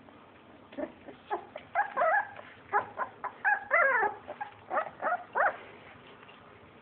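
Three-week-old puppy giving a string of short, high cries, some bending up and down in pitch. They start about a second in and stop shortly after five seconds, and are thickest in the middle.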